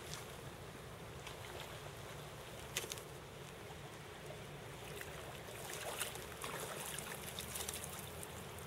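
Shallow river running steadily over a gravel riffle, with a few short splashes and knocks scattered through.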